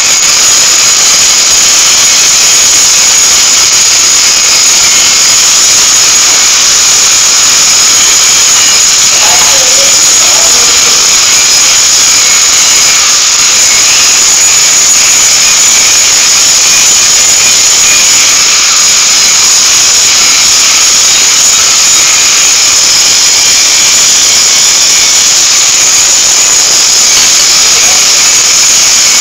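Machinery running steadily, a loud, even hiss with no rhythm, strongest in the high range. Faint voices come through now and then.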